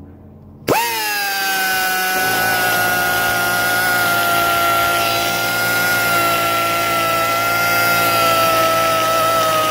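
Air-powered die grinder starting up about a second in and then running with a steady high whine, its aggressive bit grinding the cast iron of a small-block Chevy head's intake bowl. The pitch drifts slightly lower as it works.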